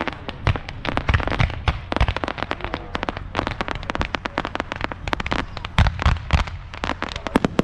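Aerial fireworks display: rapid sharp pops and crackles from bursting shells, several a second, with a few deeper booms among them.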